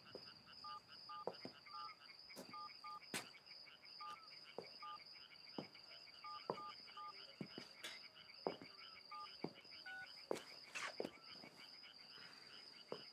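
Night ambience of crickets chirping in a steady pulsing trill, with short high piping calls repeating irregularly and scattered faint clicks.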